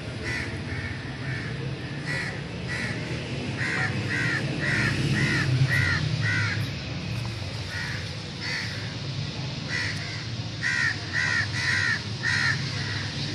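An animal repeating short, high, rising-and-falling calls, scattered at first and then in two quick runs of about two calls a second. A steady low hum runs underneath.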